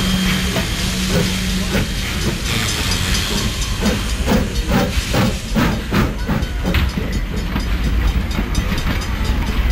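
Steam locomotive hissing steam as it gets under way, with a run of exhaust chuffs, about three a second, from about four to seven seconds in, over a steady low rumble.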